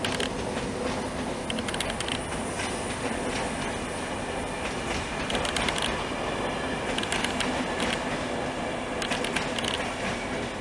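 Wheels of a slow-moving loco-hauled passenger train of Mark 3 coaches running over station pointwork: a steady rumble broken by clusters of sharp clicks as the bogies cross the joints and crossings, with a faint high wheel squeal.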